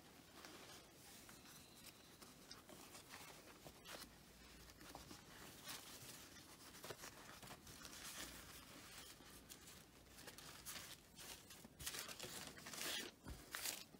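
Faint rustling and crinkling of thin paper napkins being handled and laid one on top of another, with a few louder rustles near the end.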